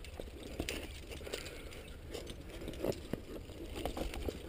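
Scattered light scrapes and clicks of a climber's hands and shoes moving on limestone rock, over a steady low rumble.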